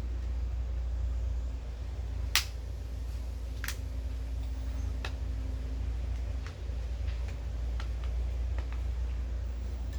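A few sharp clicks and knocks from handling parts and tools, the loudest about two and a half seconds in, then fainter ones spaced a second or so apart, over a steady low rumble.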